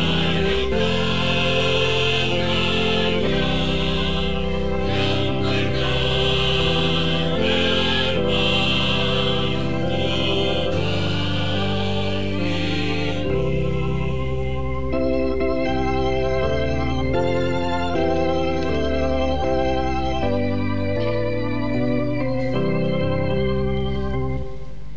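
Church choir singing in parts over organ accompaniment. About halfway through the choir stops and the organ plays on alone in held chords.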